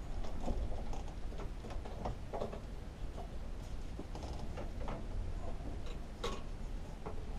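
Handling noise from fitting a plastic air filter holder onto a Tecumseh lawnmower engine: irregular small clicks and taps, with one louder click about six seconds in.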